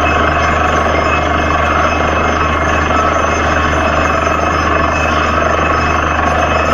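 Borewell drilling rig running steadily at full work: a loud, unbroken mechanical din with a constant low hum underneath.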